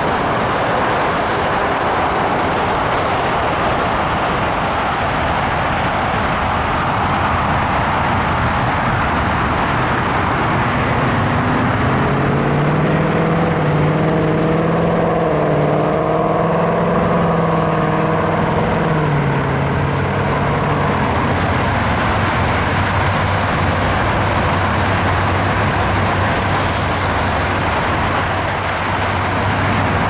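Road traffic passing: steady tyre and engine noise, with one vehicle's engine note rising and then falling as it goes by around the middle, and a low steady engine hum in the last third.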